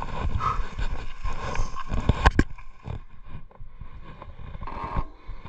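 Electric mountain bike being handled and set rolling on a dirt trail: knocks and rattles of the bike, a sharp clack a little over two seconds in, then quieter tyre and rolling noise.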